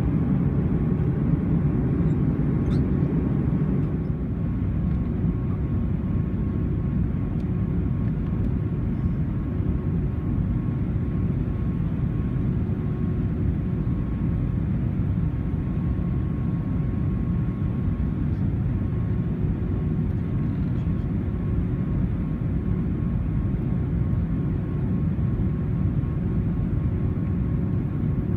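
Airbus A320 cabin noise heard from a window seat over the wing during descent: a steady, deep rumble of engines and airflow with a faint steady hum, easing slightly about four seconds in.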